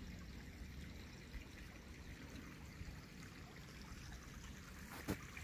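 A small woodland creek flowing open through snow and ice, a faint steady trickle of running water. About five seconds in, one sharp footstep.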